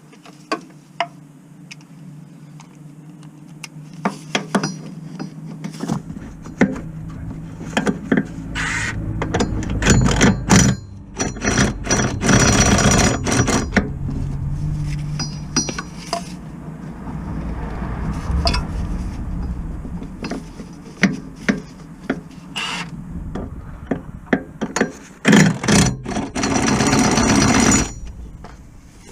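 Impact gun running in two long bursts, with clicks and knocks of tools and metal parts between them.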